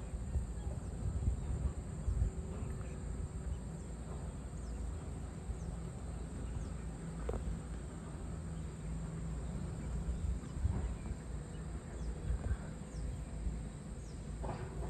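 Outdoor tropical countryside ambience: a steady high-pitched insect drone, with short falling chirps now and then, over a low, fluctuating rumble.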